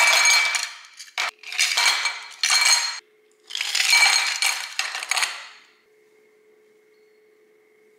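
Ice cubes tipped from a container into a stemless glass, clattering and clinking against the glass and each other in three bursts.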